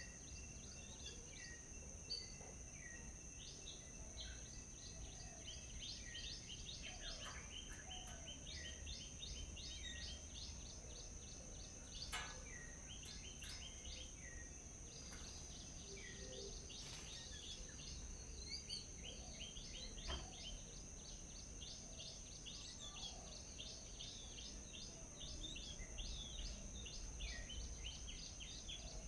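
Small birds chirping in quick runs of short, repeated notes, over a steady high-pitched whine and a low rumble. A few sharp clicks stand out, the loudest about twelve seconds in.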